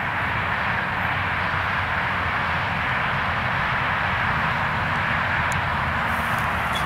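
A loud, steady rushing noise over a low rumble.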